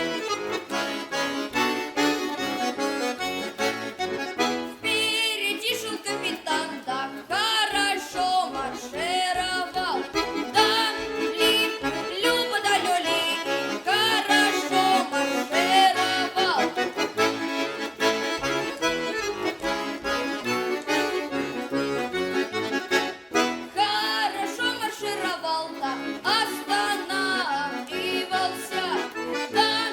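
An accordion playing a Russian folk song, with a singing voice carried over it in several phrases.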